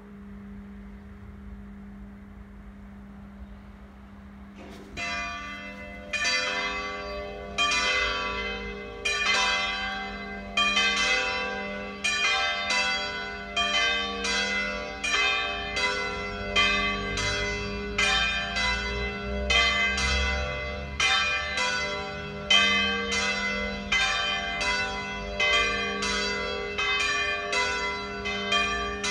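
Full peal of three swinging church bells, the 'plenum' rung ahead of a Sunday Mass, sounding in quick, uneven overlapping strokes. It begins about five seconds in; before that only a low steady hum lingers.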